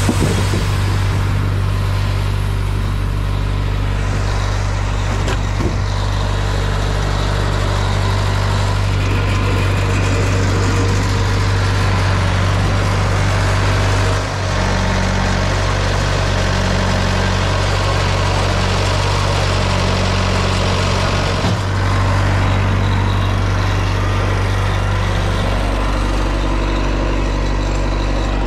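Wood-Mizer LT50 portable band sawmill running steadily with a loud, even engine drone. The engine note changes near the end.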